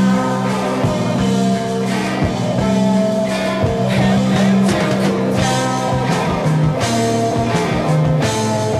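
Late-1960s psychedelic rock recording in an instrumental passage: lead and rhythm guitars, bass guitar and drums playing together with steady cymbal and drum hits.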